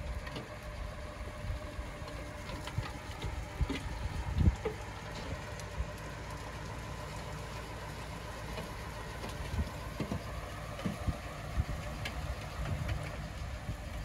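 Heavy construction machine's diesel engine running steadily, with scattered low thumps and clanks, the loudest about four and a half seconds in.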